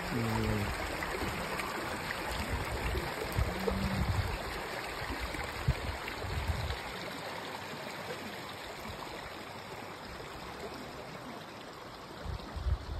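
A small shallow creek trickling and babbling over stones, a steady water sound that grows somewhat fainter in the second half. Occasional low gusts of wind buffet the microphone.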